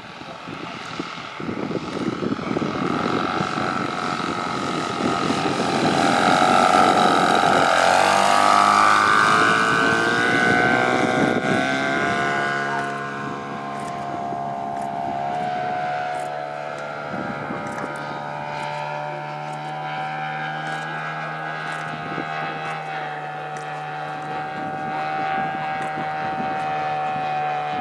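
Large-scale RC airplane's DLE two-stroke gasoline engine and propeller in flight. It is loudest as the plane comes by about a quarter of the way in, rises a little in pitch, then settles into a steady drone.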